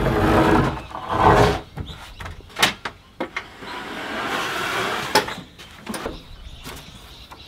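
A large sheet of thick plywood scraping and sliding as it is carried and pushed across a pair of folding workbenches, with a few sharp knocks as it bumps and settles on them.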